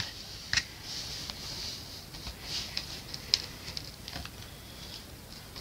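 Faint handling sounds: small clicks and taps as push pins are pressed into the corners of a wooden canvas stretcher frame.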